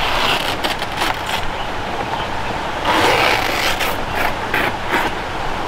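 A large traveller's tree leaf being torn along its veins: a few short rips in the first second and a half, then a longer run of ripping and rustling about halfway through.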